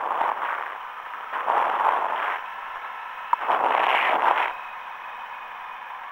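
Riding noise on a camera mounted on a Honda CRF 250L motorcycle: gusts of rushing wind on the microphone, with a single click about three seconds in, easing to a quieter steady rush after about four and a half seconds.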